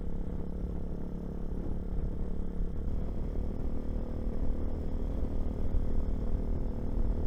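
Hawk 250 motorcycle engine running under way, with low wind rumble on the microphone. The engine note changes about three seconds in and grows slightly louder.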